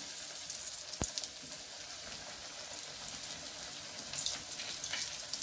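Hot cooking oil sizzling in a pan around stuffed bread pieces frying in it: a steady hiss with scattered small crackles.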